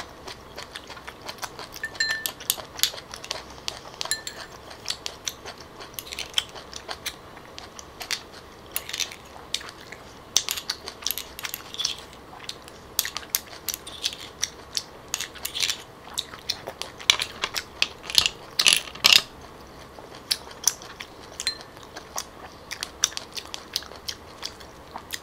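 Close-miked eating sounds of someone chewing grilled clams: irregular sharp wet clicks and smacks from the mouth, with a metal spoon scraping and tapping against the clam shells.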